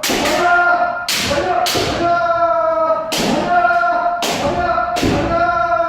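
Kendo practice: long, held kiai shouts from the trainees, broken about every second by sharp cracks of shinai strikes and stamping footwork (fumikomi) on the dojo's wooden floor.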